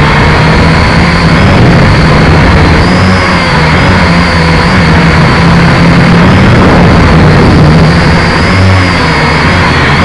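Quadcopter's electric motors and propellers whining loudly as heard by the drone's own onboard camera, the pitch rising and falling together with the throttle, over a heavy low rumble.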